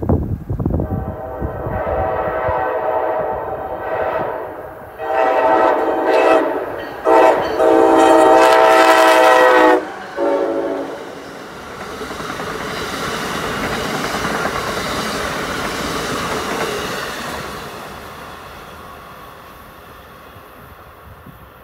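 Amtrak ACS-64 electric locomotive sounding its horn in a series of long and short blasts as it approaches, the longest and loudest blasts just before it reaches the microphone. Then the passenger train's cars rushing past on the rails, the noise fading away over the last few seconds.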